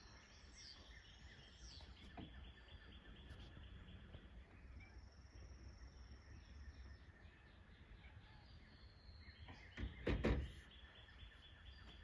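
Quiet outdoor ambience: faint bird chirps over a low steady rumble, with a brief louder noise near the end.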